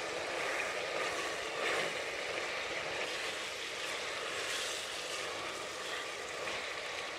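Mutton pieces, tomatoes and whole spices sizzling steadily in mustard oil in a steel pressure cooker as they are stirred with a spatula: the bhuna stage, the meat being fried until the tomatoes cook down to a paste.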